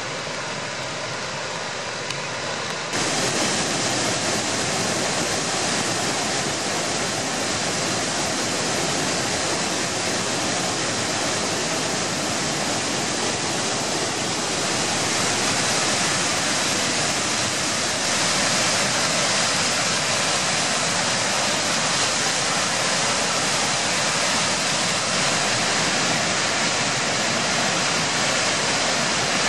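Water released from a dam spillway pouring down the concrete chute as white water, a steady rushing noise; it becomes louder about three seconds in.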